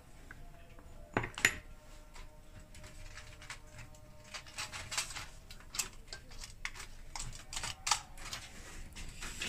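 Light metal clicks and clinks of electric heater parts being handled and fitted during reassembly, with two louder knocks a little over a second in and a quick run of taps later on.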